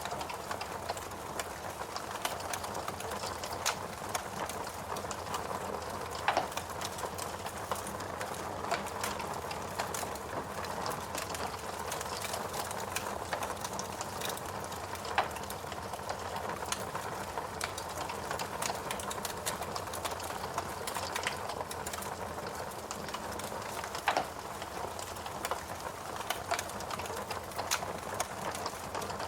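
Wood fire burning in a fireplace: a steady hiss and flutter of flames with frequent small crackles and a few louder pops from the burning logs.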